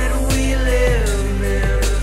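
Background music: a song with a steady low bass and a melody line that slides in pitch.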